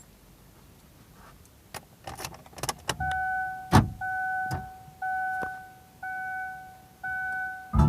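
Car's dashboard warning chime beeping steadily, about once a second for five beeps, with a few clicks and knocks of keys and controls before and between them. The car is switched on but the engine is not yet running.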